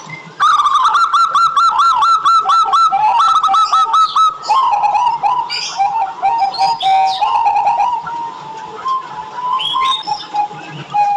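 Zebra dove (perkutut) singing: a fast run of short, arched cooing notes for the first few seconds. Then comes a more varied stretch of notes mixed with higher chirps, which thins to scattered notes near the end.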